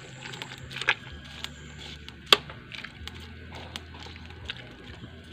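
Metal ladle stirring jackfruit in coconut milk in an aluminium pot, with scattered light clicks and knocks, the sharpest a little over two seconds in.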